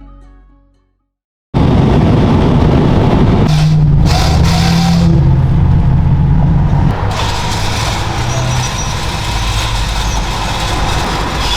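Guitar music fading out, then after a moment of silence a vehicle engine starts to be heard suddenly and runs loud and steady, with road and wind noise over it.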